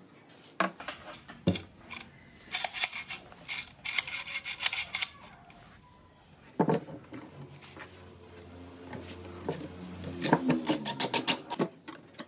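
Scattered clinks, clicks and knocks of tools being handled on a wooden workbench: a trim router with a metal circle-cutting jig set in place and a steel ruler laid against it. No motor is running.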